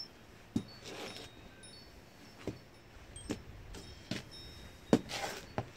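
New brown Ariat roper boots knocking on a raised platform as the wearer steps and shifts his feet: about seven irregular heel thuds, the loudest near the end.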